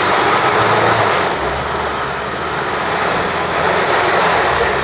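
Volkswagen Amarok pickup's engine pulling under load as the truck crawls up a muddy slope in the ruts, with a steady hiss over it.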